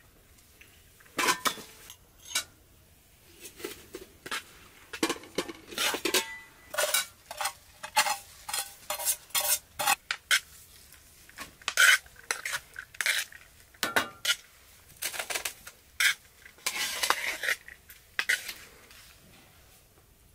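Metal spoons clinking and scraping against cast-iron pans and metal plates as rice and whole chickens are served, in a long run of irregular clinks and scrapes, some ringing briefly.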